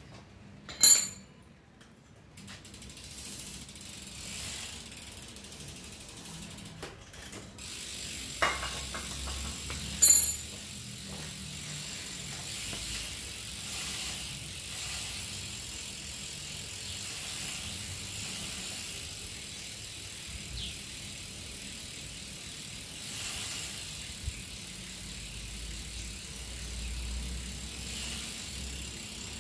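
Bicycle rear hub's freewheel pawls clicking in a steady fine ratchet as the cranks are turned and the rear wheel spins on a workstand. There are two sharp knocks, one about a second in and one about ten seconds in.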